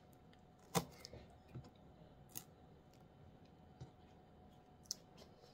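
Bok choy stalks being cut with a kitchen knife and pulled apart on a cutting board: about five faint, sharp clicks and snaps at uneven intervals, the loudest about a second in.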